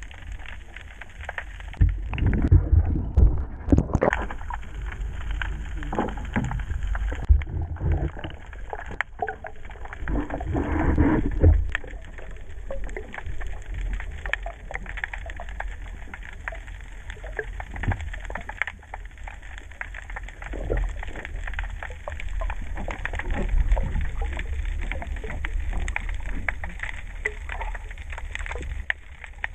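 Underwater sound through a submerged camera: a low, muffled rumble of moving water with constant fine crackling clicks, and louder churning surges about two to four seconds in and again around ten to eleven seconds.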